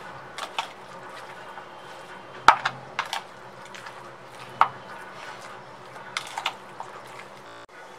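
Metal spoon mixing raw chicken pieces in a spice and yogurt marinade in a bowl, with irregular clinks and knocks against the bowl. The loudest knocks come about two and a half and four and a half seconds in.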